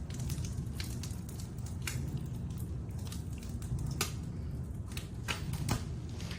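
Oak firewood burning, lit by a fire starter: irregular sharp crackles and pops over a low steady rumble of flame.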